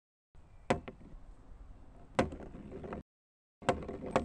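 Balls set down one after another on a wooden track beam, each landing with a sharp knock on the wood: four knocks over a faint rustle, in short clips broken by cuts to dead silence.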